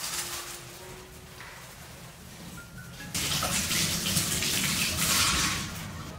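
Water running and splashing, getting louder about three seconds in.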